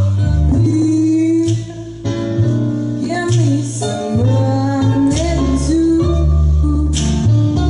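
A woman singing a karaoke song into a microphone over a backing track with bass and guitar.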